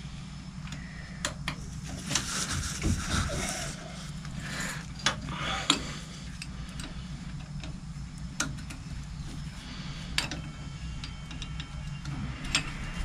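Scattered metallic clicks and clinks of a socket wrench on a long extension bar undoing the bolts of a PRM260 gearbox's hydraulic pump, over a low steady hum.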